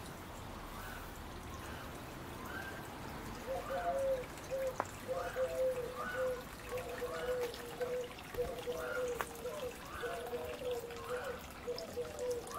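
Water trickling and gurgling into a small garden pond, a quick run of bubbling notes that starts and grows louder about three seconds in.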